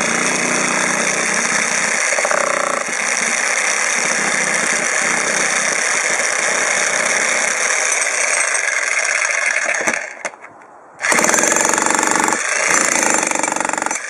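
Arksen 1500 W electric demolition hammer running steadily with its bit driven into a concrete slab, the bit wedged and being worked back out. It stops about ten seconds in, then starts again a second later in two short runs.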